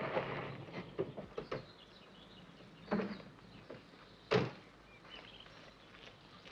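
Car door being handled: a few faint knocks and clicks, then a single loud clunk a little over four seconds in.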